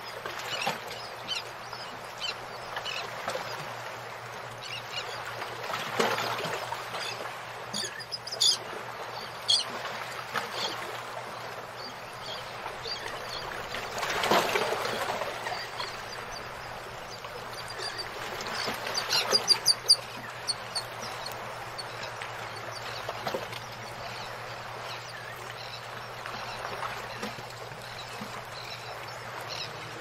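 Nestling birds chirping in short, high cheeps now and then, with a quick run of cheeps about twenty seconds in, over a steady low hum and a few handling knocks.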